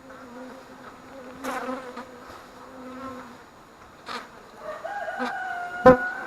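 Honeybees buzzing close by at an open hive that has grown agitated: a steady hum that stops about halfway through, then a higher-pitched buzz from a bee flying near. A sharp knock near the end is the loudest sound.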